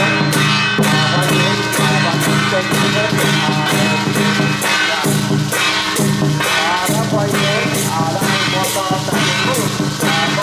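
Procession music: a drum and hand cymbals struck on a steady beat, about twice a second, over a song with singing.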